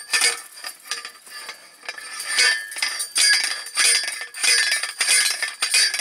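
Steel star picket and the hand post driver clamped to it clanking against each other as the picket is driven into soft, rain-wet ground: sharp metallic clanks with a ringing tone, about one a second at irregular intervals.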